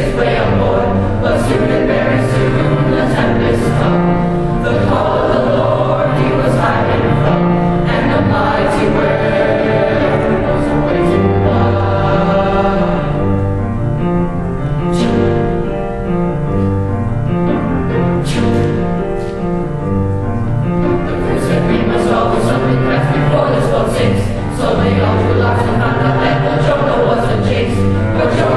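Middle school boys' choral ensemble singing a gospel-style piece in parts, with a repeating low line under the upper voices.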